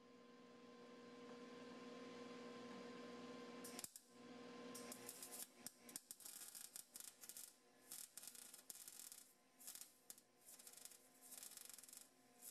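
Faint welding arc tacking the 3x4 tube rear frame upright in place: a faint steady hum for about the first four seconds, then short crackling bursts of the arc that stop and start, one tack after another.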